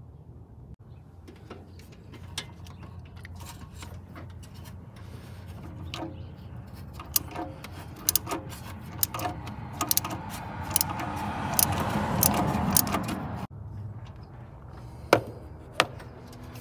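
Ratchet wrench on a socket extension working an old spark plug loose: irregular metal clicks and clinks, growing denser and louder, over a steady low hum. The sound cuts off suddenly, and two sharp clicks follow near the end.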